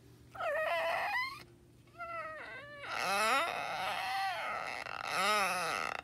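Small dog making four drawn-out, wavering whine-groans in a row that sound like a creaky door.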